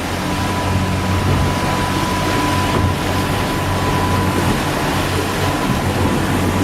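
Fishing boat's engine running steadily, a low hum with a thin steady whine above it, under a constant rush of wind and water.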